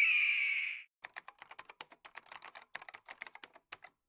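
Rapid computer keyboard typing, many quick key clicks for about three seconds, stopping just before the end. It follows a short tone that falls slightly in pitch and fades out just under a second in.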